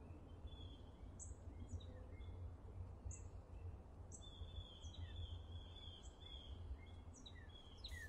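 Birds chirping over a faint low rumble of background noise: short high notes, several a second, some sweeping downward, with a longer run of trilling notes in the middle.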